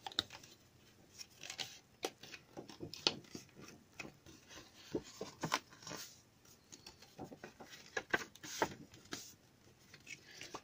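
Sheet of patterned paper being folded along its score lines and handled: irregular soft rustling and crackling of the paper creasing, with small sharp taps scattered throughout.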